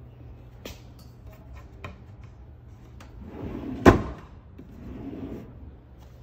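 A laminate cabinet being handled: a few light clicks and some soft rustling, then one sharp knock about four seconds in.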